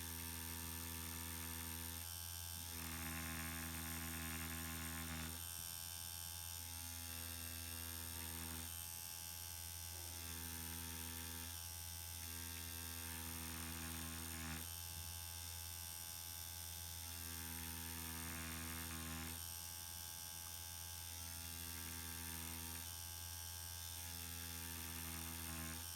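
Permanent-makeup machine buzzing over a steady electrical hum, its pitched buzz coming and going in stretches of about two seconds as hair strokes are drawn.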